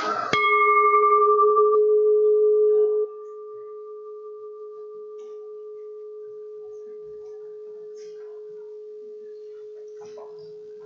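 A singing bowl struck once, ringing with a low hum and fainter, higher overtones. About three seconds in its level drops sharply, and it then rings on faintly and steadily.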